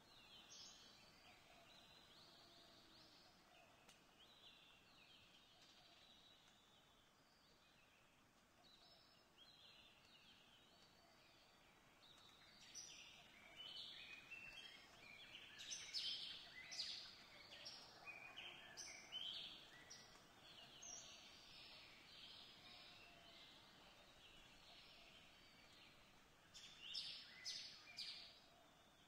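Faint birdsong: many short chirps from small birds, thin at first, busier through the middle and in a short flurry near the end.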